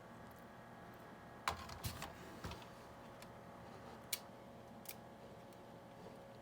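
A few light, scattered clicks and taps, about five over several seconds and the first the loudest, from handling a sticker sheet and pressing stickers onto a hard plastic RC truck body.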